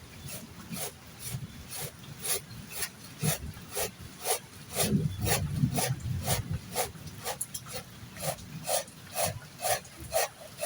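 Rhythmic rasping or scraping strokes, about two to three a second and fairly even, over a low rumble.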